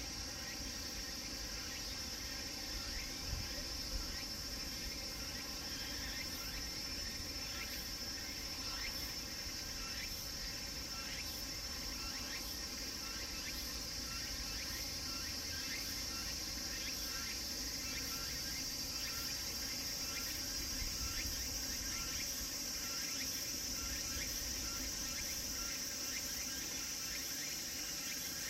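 Cicadas singing in a steady, high-pitched late-summer chorus, with a fainter pulsing call repeating at an even pace underneath through the middle stretch.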